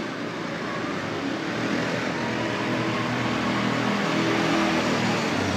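Engine of a small four-wheeled camera buggy driving toward the listener, getting louder as it comes closer.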